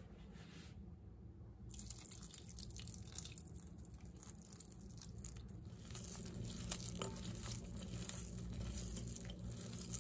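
Crisp fried bitter gourd slices and sliced onion being tossed together in a salad: an irregular patter of small clicks and crackles, starting about two seconds in.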